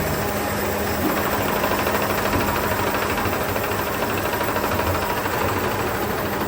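Industrial machinery running steadily, with a constant hum and a dense, even mechanical noise.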